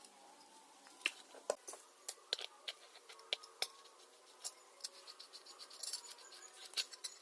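Irregular light clicks, taps and scratches from hand work on a small object, at a few per second in the busier stretches.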